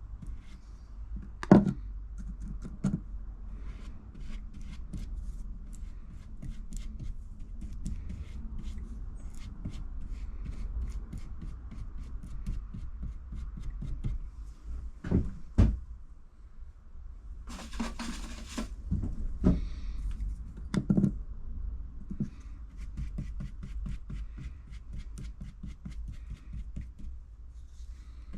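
Brush dabbing polyester resin into fibreglass matting: scattered light taps and clicks, with a few louder knocks and a short rustling burst about two-thirds of the way through, over a steady low rumble.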